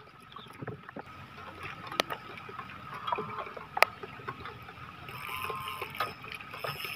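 Light rain falling on the river and the wooden boat, with scattered small ticks and two sharp knocks, about two seconds apart, as fishing rods are handled in the boat.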